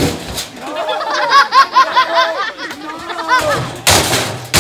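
A voice yelling in a rapid string of high, rising-and-falling cries, a temper tantrum, then a loud noisy burst near the end.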